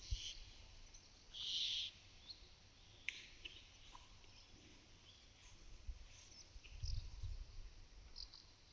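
Quiet pasture ambience: small birds chirping and calling, with one harsh half-second call about a second and a half in. Cows lick a mineral salt block with a faint, slightly abrasive sound, and low muffled bumps come near the start and again around seven seconds in.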